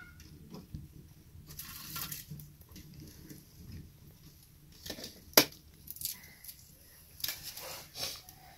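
Firewood sticks and dry straw being handled and shifted at a small wood fire: short rustling, scraping and crunching bursts, with one sharp crack about five seconds in.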